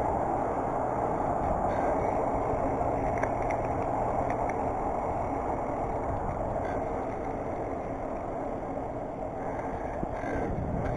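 Steady muffled rushing of a BMX bike rolling along a concrete sidewalk: tyre and wind noise picked up through a GoPro's waterproof case, easing off a little near the end.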